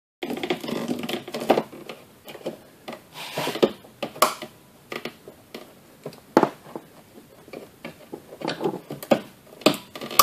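Plastic and metal parts being handled and fitted back into a car's engine bay: irregular clicks and knocks with short stretches of rubbing and scraping.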